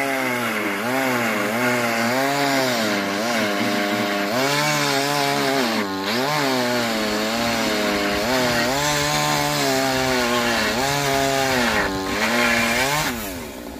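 Petrol chainsaw cutting through a rotten wooden antenna pole. Its engine pitch keeps dipping under load and climbing back. Near the end the revs fall away and the saw drops to a lower, quieter run.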